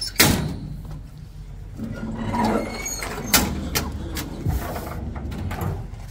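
A sharp metal clack, then creaking and a few knocks, as a Peterbilt 379's tilt hood is unlatched and swung forward to open.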